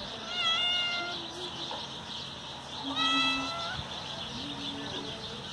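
Cat meowing twice, short calls about three seconds apart.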